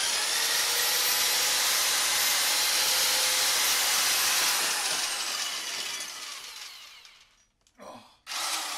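Erbauer diamond core drill with an extension pole, running steadily with a high whine as it cuts through the last of a hard Accrington brick outer wall. About four and a half seconds in the motor is let off and winds down, falling in pitch and fading out, with a brief noise near the end.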